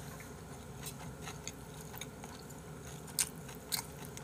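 Metal spoon scraping and clinking against a stainless steel bowl while scooping fried rice: a few brief sharp clinks, the loudest a little after three seconds in, over faint chewing.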